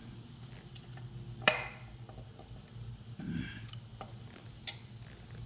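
Sharp metallic clicks and light knocks as the clutch release lever and thrust bearing are worked into a Jaguar E-Type transmission bellhousing by hand. The loudest click comes about a second and a half in, with a few lighter ones later.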